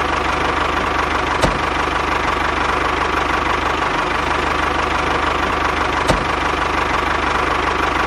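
Diesel tractor engine sound running steadily with a fast, even chug. Two short clicks sound over it, one about a second and a half in and one near six seconds.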